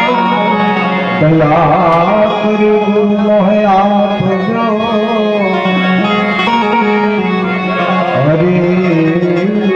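Live bhajan music: a harmonium-type steady held note with tabla, and a wavering, ornamented melody line over it.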